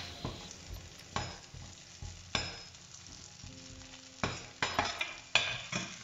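Chopped onion and whole garlic cloves sizzling in olive oil in a stainless steel pan, while a metal slotted spoon stirs and scrapes across the pan. About seven sharp scrapes are heard, most of them close together in the second half.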